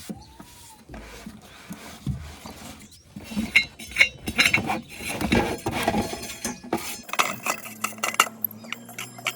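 Irregular clinks and knocks of hard objects striking one another. A steady low hum joins about seven seconds in.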